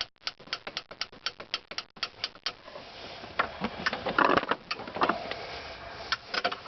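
Ratchet wrench clicking in quick strokes for about two and a half seconds, then scattered clicks and metal tool clatter.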